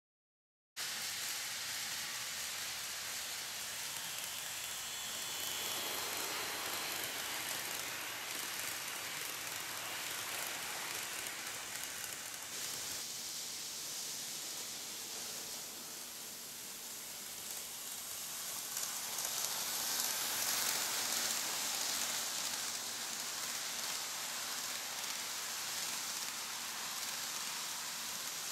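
N-scale model train running on the track: a steady hissing whir of motor and wheels that swells and fades again about twenty seconds in.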